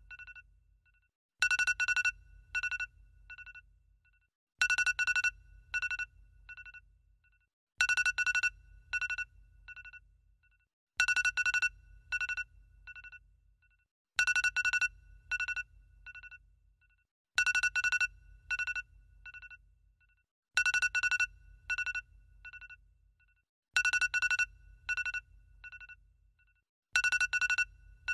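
A short electronic ringtone-like phrase looping about every three seconds, each repeat a quick run of high beeping notes over a low bass tone, with brief gaps between repeats.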